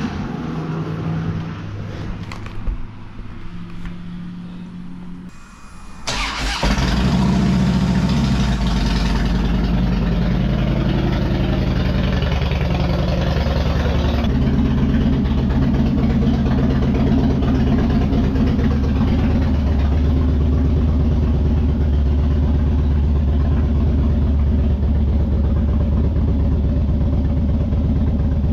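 A vehicle engine starts about six seconds in and then idles steadily.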